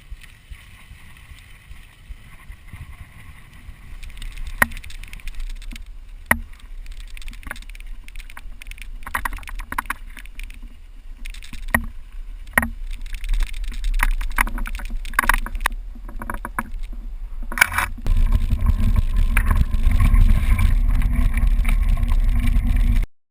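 Low wind rumble on a GoPro action camera during a mountain-bike ride, with scattered sharp knocks and rattles from the bike. It grows louder about four seconds in, jumps much louder about eighteen seconds in, and cuts off suddenly near the end.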